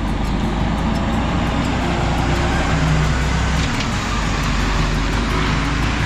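Mercedes-Benz heavy truck hauling a loaded lowbed trailer drives past, with a steady diesel engine rumble and tyre hiss on wet asphalt that thickens as it draws level.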